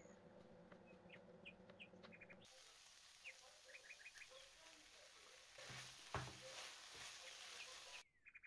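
Faint bird chirps in short quick runs. About two and a half seconds in, a soft sizzle of chopped vegetables frying in a pan starts, with one knock about halfway through as diced tomato is tipped into the pan from a cutting board. The sizzle cuts off shortly before the end.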